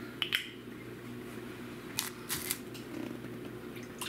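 A cardboard milk carton is handled and its plastic cap twisted open, giving a few short clicks. Milk starts to pour into a glass measuring cup near the end. A steady low hum runs underneath.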